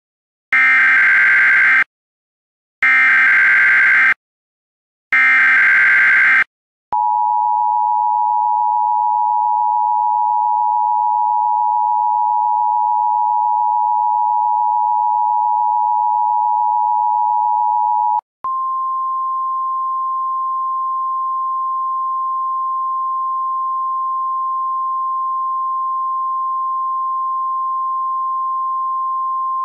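Emergency Alert System tones. It opens with three short bursts of SAME header data, each about a second long. Then comes the two-tone attention signal, held steady for about eleven seconds, and after a brief gap a single steady, slightly higher tone, the National Weather Service 1050 Hz alert tone.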